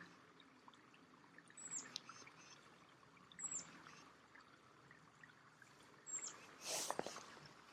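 Faint splashing and trickling of a small waterfall, with a bird's short, high, falling chirp repeated about every two seconds. A brief louder noise comes near the end.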